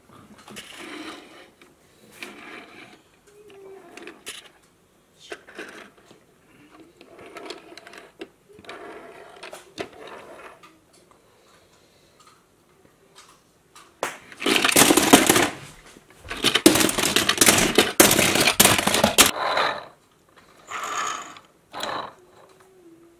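Die-cast metal and plastic toy cars and trucks being handled: scattered light clicks and scrapes, then several seconds of loud rattling and clattering past the middle as the toys are stirred in a plastic bin.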